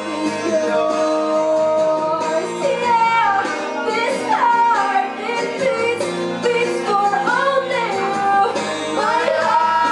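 A woman singing a slow song live into a microphone, with guitar accompaniment, her voice holding long notes and sliding between them.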